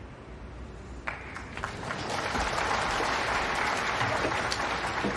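Snooker audience applauding a pot: a sharp click about a second in, then clapping that builds and holds to near the end.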